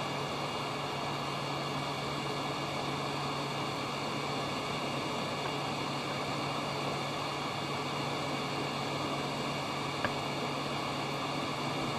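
Hot-air soldering station blowing a steady hiss of hot air with a low hum, desoldering a chip from a circuit board; one faint tick about ten seconds in.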